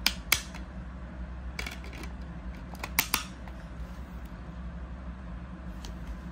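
Sharp plastic clicks of an open DVD keep case being handled, the disc pressed on its centre hub. Two clicks at the start and a quick pair about three seconds in, with fainter taps between, over a steady low hum.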